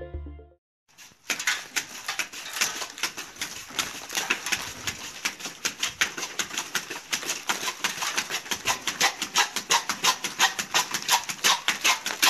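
Rapid, irregular knocks and taps from a worker's hand tools striking material, about five a second, starting about a second in.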